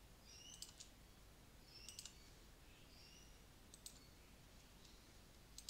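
Faint clicks of a computer mouse, mostly in quick pairs, repeated a few times over near silence.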